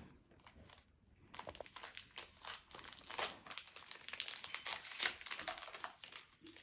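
Foil Pokémon card booster pack being crinkled and torn open, a dense crackling from about a second in until near the end.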